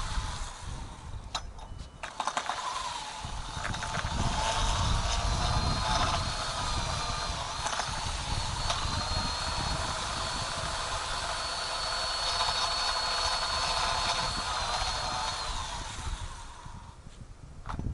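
Ryobi 40V cordless lawn tool's electric motor running on a Biswaye replacement battery, a steady whine that wavers slightly in pitch with load. It dips briefly about two seconds in and winds down near the end.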